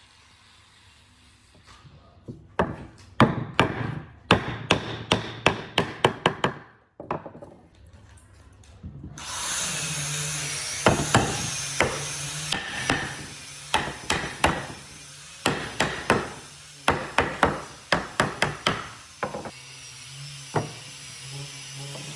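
Hammer blows on wood in quick runs of sharp knocks. About nine seconds in, a power tool starts running and carries on under the later blows.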